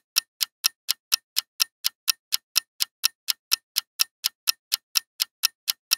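Countdown clock ticking sound effect for a quiz answer timer: a steady run of sharp ticks, about four a second.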